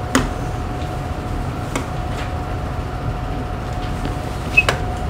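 Steady electrical hum over low room noise, with a few sharp clicks scattered through, the loudest a little over four and a half seconds in.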